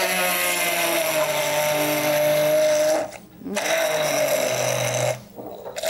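Hand-held immersion blender running in a glass jug, puréeing white beans with a little olive oil. It runs for about three seconds, stops briefly, then runs again for about a second and a half before stopping near the end.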